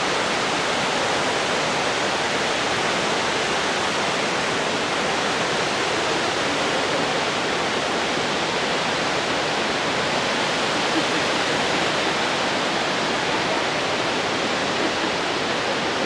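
Steady rush of river water pouring through a rock gorge, an even wash of noise with no breaks.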